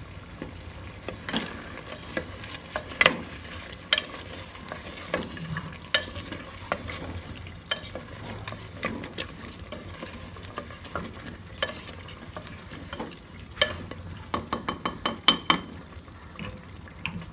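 A spoon stirring chicken and potato chunks in gravy in a pressure cooker, knocking and scraping against the pot every second or so over a steady sizzle of the cooking curry, with a quick run of knocks near the end.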